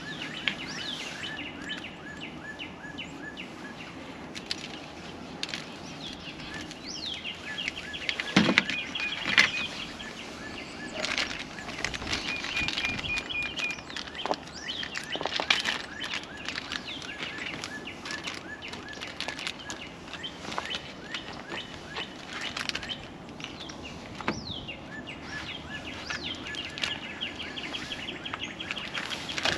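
Small birds chirping and trilling, with repeated short notes and quick falling calls, over the crackle of bacon frying on a griddle. Scattered clicks and knocks come from cooking utensils, the loudest about eight seconds in.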